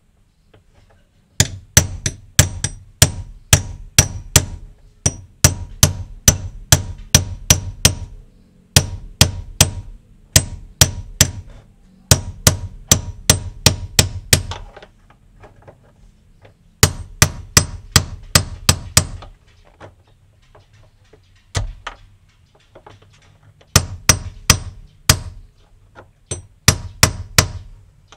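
Claw hammer tapping a thin steel rod set against the fuel tank's sender locking ring, knocking the ring round to loosen it. Sharp metallic taps come about three to four a second in several runs with short pauses between them, and there is a single tap near the middle.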